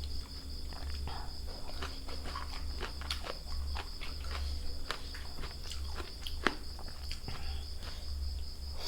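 Crickets chirring steadily in the background, with scattered sharp clicks and crunches of people eating seafood: shells, bites and utensils.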